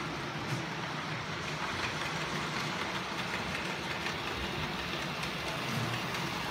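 OO gauge model trains running on the track: a steady hum of the locomotive motors with the rolling of wheels on the rails.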